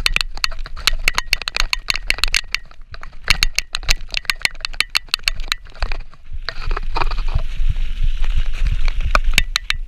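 Mountain bike rattling over rough ground on a descent: a fast, irregular stream of clicks and knocks from the chain and frame, then from about six and a half seconds in a steadier hiss of tyres rolling over loose stony track. Wind rumbles on the microphone underneath.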